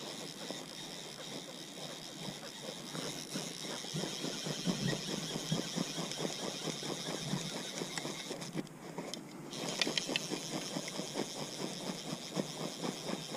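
Fly reel drag buzzing as a large trout pulls line off against the bent rod. The high, steady buzz breaks off briefly about eight and a half seconds in, then starts again.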